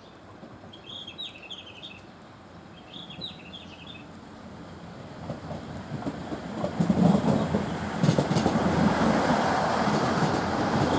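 KiHa 110 diesel railcar approaching and running past. Its sound builds from about halfway through and stays loud over the last few seconds.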